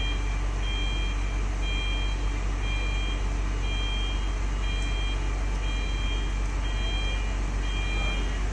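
Warning beeper on heavy construction machinery, a two-pitch beep repeating about once a second, over a steady low engine drone.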